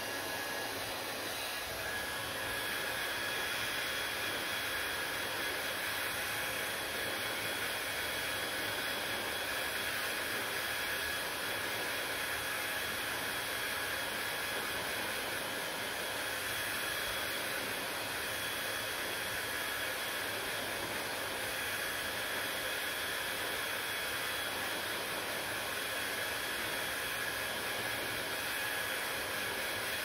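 Handheld hair dryer running steadily on one setting: a constant rush of blown air with a faint steady high whine from its motor.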